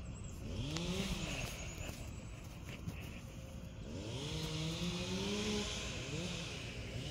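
Engine of tree-cutting machinery revving up and dropping back three times, the longest rev held for about a second and a half, with a hissing grind over the higher-revving stretches.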